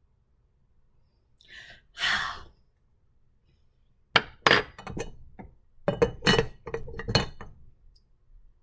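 A rush of noise, then a quick run of clinks and clattering knocks from hard objects being handled, some with a brief ring.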